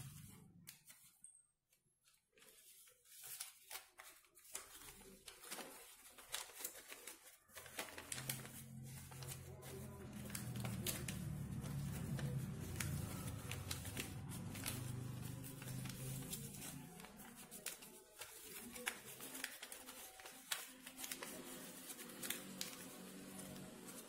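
Sheet of paper rustling and crinkling as hands fold and crease it into an origami flapping bird, with many small crackles and taps against the tabletop. A low hum sits underneath from about a third of the way in to about two-thirds through.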